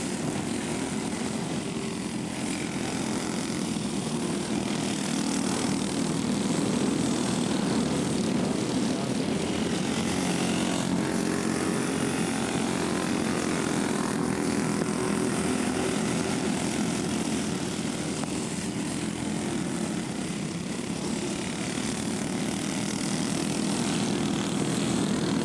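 Several racing kart engines running at speed, a continuous buzzing drone that swells and eases slightly as the karts go around the track.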